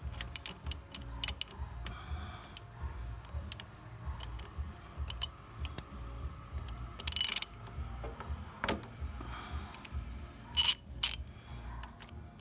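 Irregular sharp metallic clicks, with a short ratcheting burst about seven seconds in, from hand tools working on a diesel engine's fuel line and injection pump. A steady low hum runs underneath.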